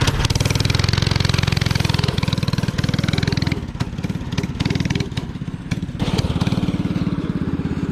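Go-kart's Predator 212 single-cylinder four-stroke engine, with a stage one kit, running hard under throttle. It drops off in level a little past halfway and comes back up louder near the end.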